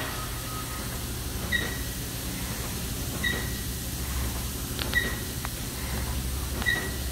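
Industrial hall ambience: a steady low hum with a short, high electronic beep repeating about every second and a half to two seconds, and a couple of faint clicks about five seconds in.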